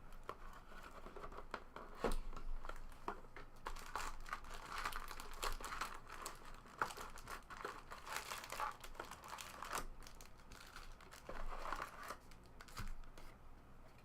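Foil trading-card pack wrappers crinkling and tearing as packs are opened and handled, in irregular rustles and small clicks.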